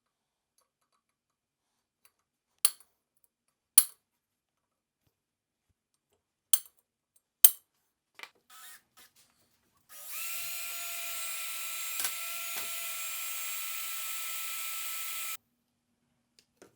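Four sharp knocks and a few lighter ones, then an electric power tool running at a steady pitch for about five seconds before cutting off abruptly.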